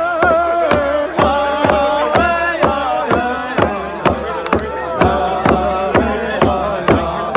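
Native American hand drum beaten steadily, about two strokes a second, under voices singing a chant-like song with long held notes.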